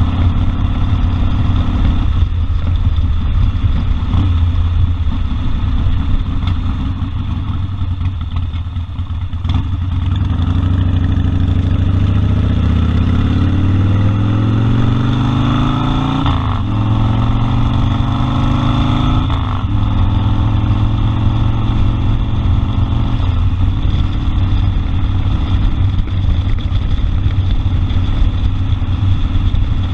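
Harley-Davidson Sportster 1200 Custom's air-cooled V-twin running at a low, steady note, then revving up under acceleration with its pitch climbing. The climb is broken twice by quick dips as it shifts up a gear, before the engine settles into a steady cruise.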